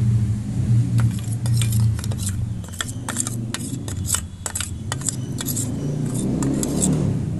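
A spoon stirring garlic juice and honey together in a small container, clinking against it in quick, irregular taps, over a low steady hum.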